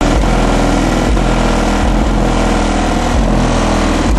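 Car audio system with subwoofers playing bass-heavy music loudly, with a deep, steady bass line under shifting notes.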